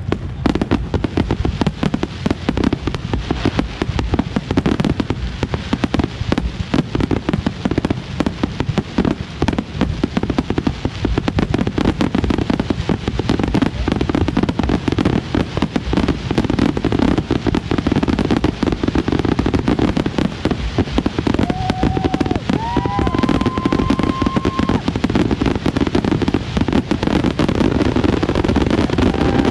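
Dense, continuous barrage of fireworks explosions and crackling. A few short whistling tones sound about three-quarters of the way through and again near the end.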